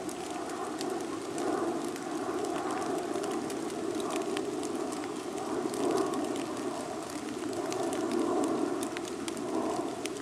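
Steady outdoor background noise, a rushing hiss with no words over it, with many faint scattered ticks and crackles.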